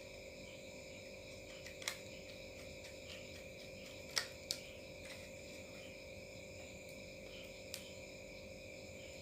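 Small sharp clicks of laptop parts and hardware being handled during an SSD install: one about two seconds in, two close together a little after four seconds, and one near the end. They sit over a steady, faint background drone of several high tones.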